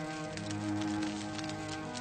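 Slow violin music with long held notes, over the irregular crackle and pop of a wood fire burning in a fireplace.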